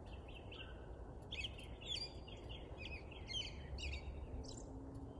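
Birds chirping, a quick run of short high chirps through the middle, over a steady low background hum.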